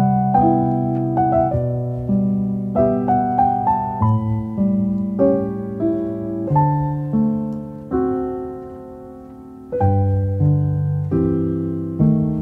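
Background music: a piano playing a slow, gentle melody over chords. A held chord fades out about eight seconds in before a new chord is struck near ten seconds.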